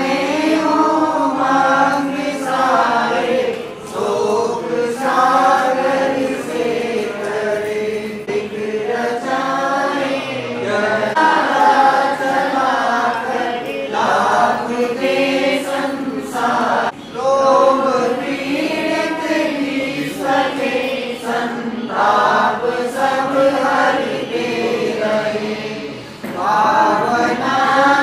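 Several voices chanting Hindu ritual mantras together in a steady, melodic recitation, with a few short pauses for breath.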